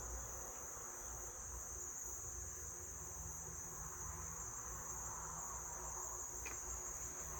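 Steady high-pitched chirring of insects, with one faint click about six and a half seconds in.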